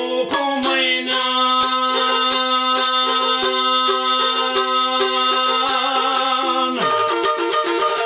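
A man sings an Albanian folk song, holding one long note over fast, even plectrum plucking on a çifteli, the two-stringed long-necked Albanian lute. About seven seconds in the voice stops and the çifteli plays on alone.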